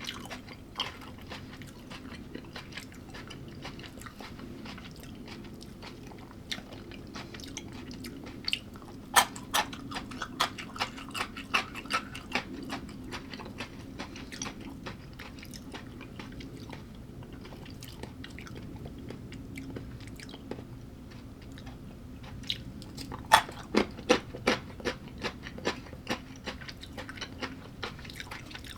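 A person chewing and biting crunchy food close to the microphone. There are two bouts of quick, sharp crunches, about nine seconds in and again about twenty-three seconds in, with softer chewing between them.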